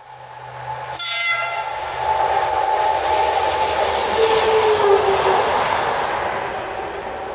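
Class 37 diesel locomotive passing at speed, its English Electric engine and turbochargers giving a steady whistling drone over a low hum. It grows louder on approach, peaks and dips slightly in pitch as it goes by, then fades. A brief high-pitched note sounds about a second in.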